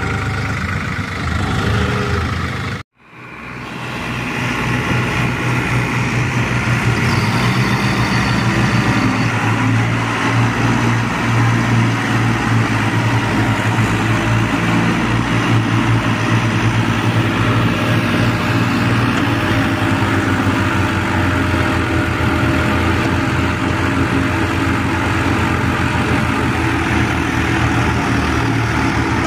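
Diesel engines of New Holland tractors running steadily while the tractors, hitched in a chain, pull a trailer stuck in mud. The sound cuts out for a moment about three seconds in, then comes back.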